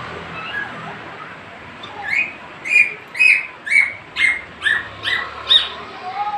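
A pet parrot calling: a run of about eight short, loud calls, roughly two a second, starting about two seconds in.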